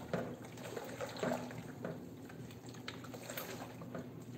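Spatula stirring a thick white brigadeiro-style filling in a large pot, with irregular wet squelching and scraping strokes.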